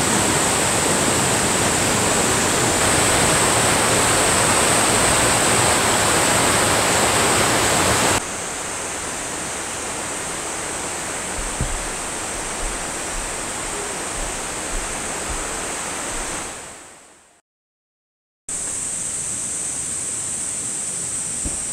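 Mountain stream rushing over rocks, a steady even wash of water. It is loud for the first eight seconds, then drops to a softer rush with a few faint knocks, fades out to about a second of silence, and comes back.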